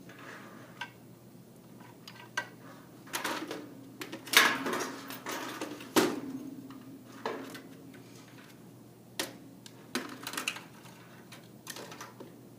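Plastic and metal parts of a desktop PC being handled as it is taken apart: scattered clicks and knocks, busiest from about three to six seconds in.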